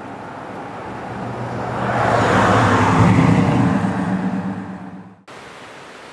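A motor vehicle driving past: engine and tyre noise swell to a peak about three seconds in and fade, then the sound cuts off abruptly, leaving quieter steady noise.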